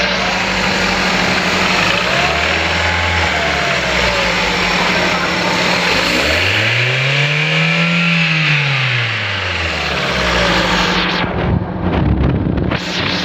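Engine running with its number 1 cylinder not firing, which makes it knock and jerk. It is revved up and back down twice, briefly early on and more strongly about halfway through. There are uneven thumps near the end.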